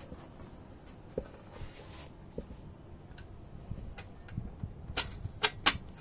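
Light clicks and taps of a black leg bracket and its screw being fitted by hand to an aluminium telescope tripod leg. Three sharper clicks come close together near the end.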